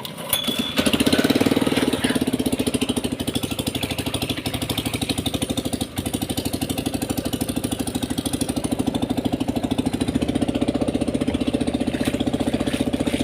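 A river ferry boat's engine starts up about a second in and runs steadily, loud, with a fast, even pulsing.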